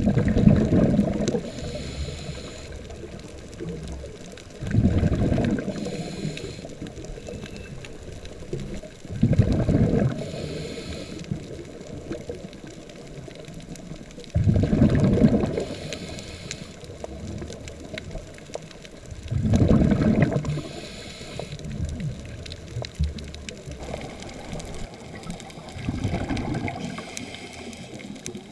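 A scuba diver breathing through a regulator underwater. Loud bubbling bursts of exhaled air come about every five seconds, each followed by a fainter hiss of inhaling.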